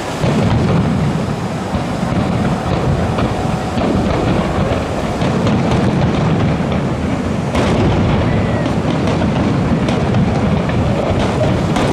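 Aerial fireworks launching and bursting in a dense, continuous barrage of bangs and cracks, starting abruptly just after the beginning.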